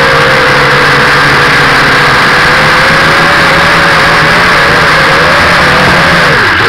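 Visitor 6 mini quadcopter's electric motors and propellers whining steadily, heard close up through its onboard camera. The pitch wavers from about halfway through and dips sharply just before the end as the throttle changes while the drone drops toward the ground.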